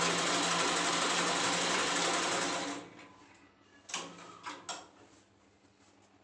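Domestic sewing machine running steadily as it stitches a pocket seam, stopping suddenly under three seconds in. About a second later come three short clicks.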